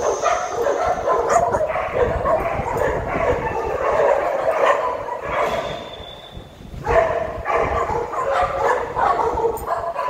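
A group of dogs barking and yipping over one another in a continuous, overlapping chorus, with a brief lull about six seconds in before the barking picks up again.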